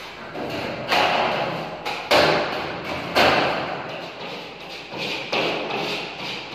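Three loud thuds about a second apart on a drywall partition, each ringing on in the bare room, followed by weaker knocks.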